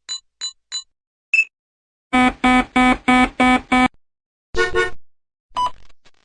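A run of different electronic beep sound effects. First come three short high beeps and a single clear beep. Then six quick buzzy beeps in a row, a fast double beep and one more single beep.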